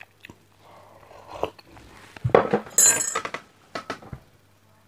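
Tableware being handled on a wooden table: a ceramic mug set down among plates, with scattered knocks, clinks and rustling that are loudest about two to three seconds in.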